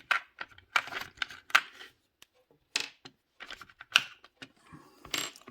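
Irregular clicks and short rattles of small rotary-tool accessories and their hard plastic case being handled and set down on a table.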